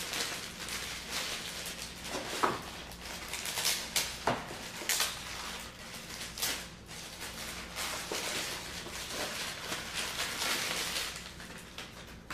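Packaging being handled as a laptop's AC-to-DC power brick is taken out of its box: continuous rustling with several sharp knocks and clunks.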